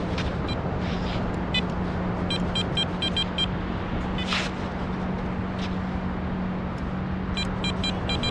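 Metal detector sounding short, high-pitched beeps in quick runs, about six in a row near the middle and another run near the end, as it is worked over a target that gives a jumpy signal. Under the beeps is a steady low hum and a constant hiss.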